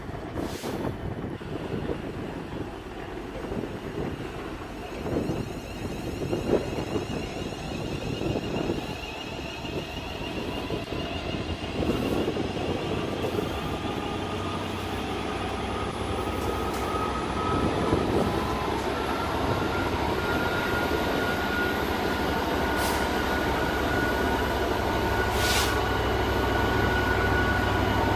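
Electric multiple unit pulling out of the station, its traction motors giving a slowly rising whine as it gathers speed, over a low steady hum that grows louder.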